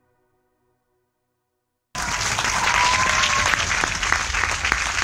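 Near silence, then about two seconds in crowd applause starts abruptly and runs on loud and steady, with a thin rising whistle over it.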